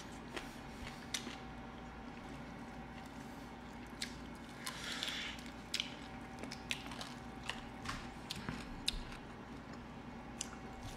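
Eating sounds of fried chicken being bitten and chewed: scattered sharp crunches and wet chewing, with a longer crunch about five seconds in.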